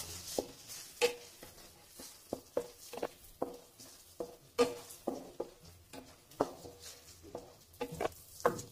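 Spatula stirring onion-tomato masala in a nonstick kadhai: irregular clicks and scrapes against the pan, a few each second, each with a short ring.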